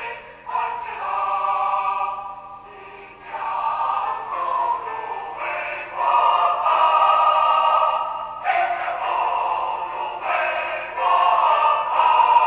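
A choir singing slow phrases of long held notes, with short breaks between phrases.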